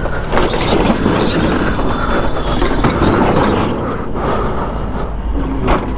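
Steel rolling shutter of a shopfront being pushed up, a long metallic rattle of the slats that dies away a little before the end.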